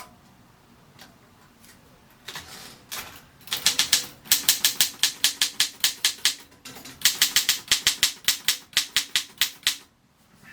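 Consul 224 portable manual typewriter being typed on: two runs of quick keystrokes, each typebar striking the platen with a sharp clack, about six a second. The first two seconds hold only a few faint clicks.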